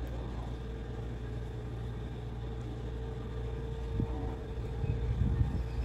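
Steady low mechanical rumble with a constant hum, as from a running motor, with a few low knocks about four to five and a half seconds in.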